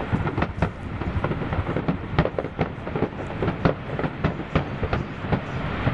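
Aerial fireworks shells bursting: an irregular string of sharp bangs, several a second, over a constant low rumble.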